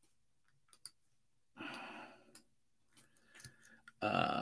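A man sighs, one long breath out about a second and a half in, with a few faint clicks before and after it. Near the end his voice starts.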